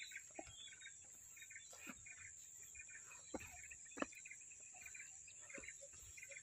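Faint outdoor ambience of insects and birds: a steady high insect drone with bursts of chirping and an even ticking pulse of about five a second. Scattered soft footsteps sound as the walker crosses the ground, the sharpest about four seconds in.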